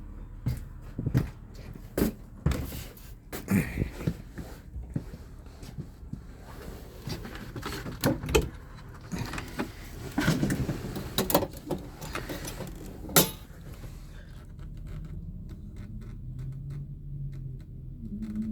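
Irregular clicks, knocks and rattles of a fuse panel being opened and its fuses handled and checked, the sharpest click about 13 seconds in, over a steady low hum.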